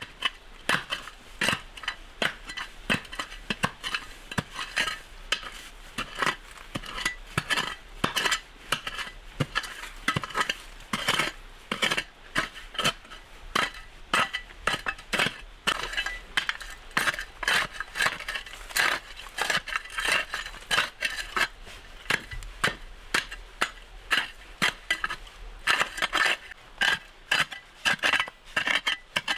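Rapid, irregular series of sharp clinks and knocks, about two or three a second, from hand work with a tool.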